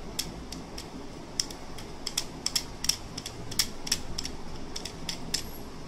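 Foil pouch of a Xiaomi phone battery being pried and torn open with tweezers, crinkling and crackling in irregular sharp clicks that come thickest in the middle.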